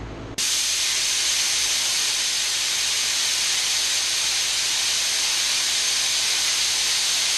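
Compressed air hissing loudly and steadily out of an air compressor's line or valve. It starts abruptly about half a second in and cuts off just after the end, with the compressor's motor hum underneath.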